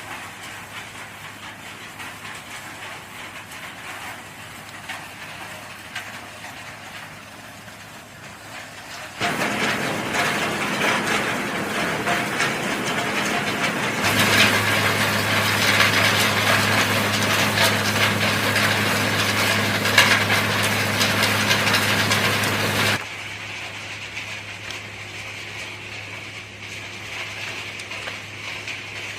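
Bone-processing factory machinery running with a steady low hum. About a third of the way in a much louder, noisy machine sound starts suddenly, grows heavier midway, and cuts off abruptly about three quarters of the way through.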